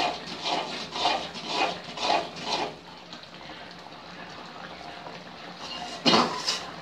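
Metal perforated ladle stirring and scraping around an aluminium kadai of boiling sugar syrup and grated coconut, at about two strokes a second. The strokes fall softer midway, leaving the syrup bubbling, and a louder scrape comes near the end.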